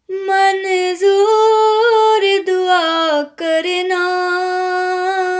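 A woman singing a naat unaccompanied, holding long drawn-out notes that glide slowly up and down, with a few brief pauses for breath between phrases.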